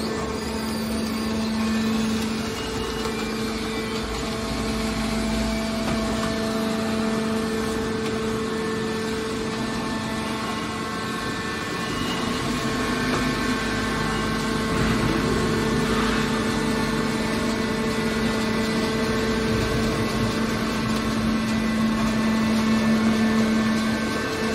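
Hydraulic scrap metal baler's electric motor and hydraulic pump unit running steadily: a constant hum with a few steady tones.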